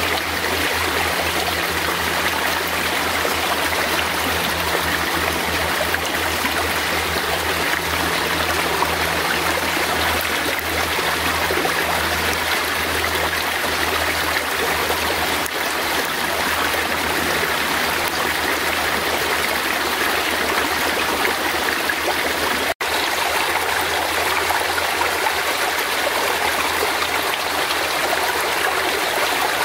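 Fast-flowing forest stream rushing steadily, with a momentary break in the sound about three-quarters of the way through.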